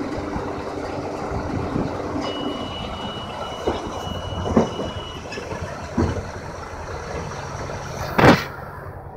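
John Deere 6830 tractor and McHale Fusion 3 baler-wrapper running in the field, with several short knocks from the machinery and a thin steady high tone for about three seconds. A loud, sudden noise comes near the end.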